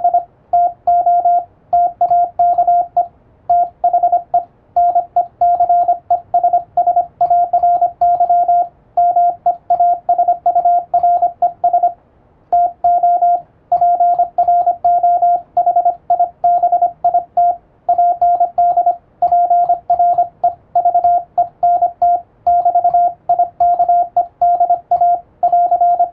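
Morse code sent with an electronic keyer, heard as a single steady beep tone keyed on and off in dots and dashes at an even speed, with short gaps between letters and words. It is English-language Morse practice text in radiotelegram format.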